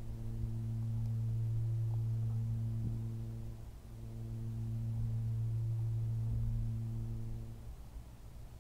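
A man humming one low, steady note, held twice for about three and a half seconds each with a short break between.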